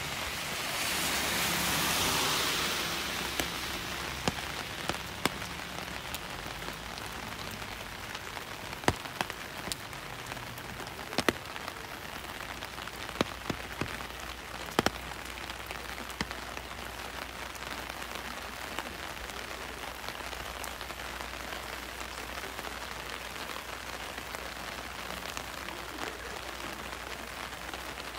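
Steady rain falling, with a hiss that swells and fades in the first few seconds. Scattered sharp ticks of single drops land close by through the first half.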